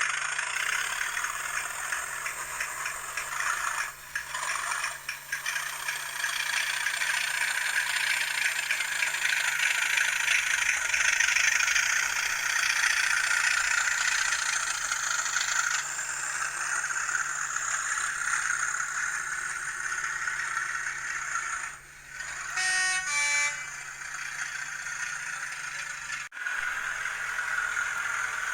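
Hornby TTS sound decoder in an N gauge Class 37 model playing Class 37 diesel engine sounds through its tiny speaker as the loco moves off, with a short horn about 22 seconds in.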